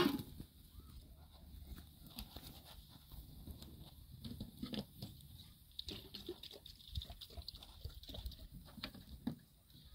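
Small open wood fire of dry twigs and branches crackling, with scattered faint pops and ticks. A loud knock right at the start.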